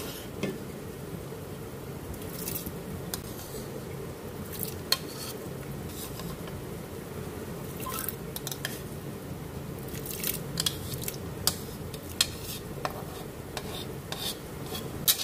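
Soaked rice being tipped into a metal pot of boiling milk: scattered clinks and taps against the pot over a steady low rumble.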